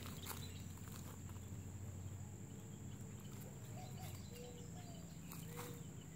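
Quiet outdoor ambience: a steady high insect drone with a low hum beneath, and a few faint short chirps about two-thirds of the way through.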